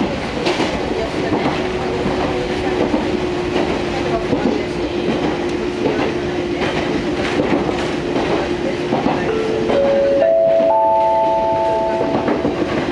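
Fukui Railway Fukubu Line train running, with wheel-on-rail noise, clacking over rail joints and a steady tone under it. Near the end, an onboard chime of four rising notes rings, each note held over the next, as before an announcement.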